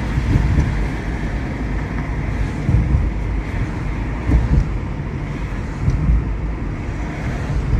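Steady low rumble of a car being driven, road and engine noise heard from inside the cabin, swelling slightly now and then.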